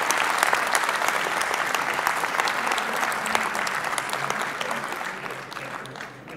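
Audience applauding at the end of a talk, many hands clapping, dying away near the end.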